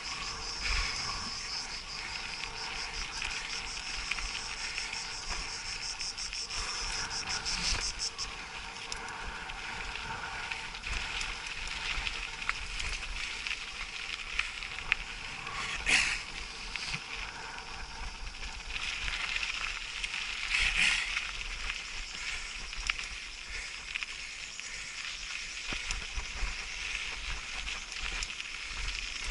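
Insects chirring in a high, fast-pulsed buzz that stops about a quarter of the way through, over the steady rattle and hiss of a mountain bike riding a dirt and gravel trail. Two louder scraping hisses come around the middle.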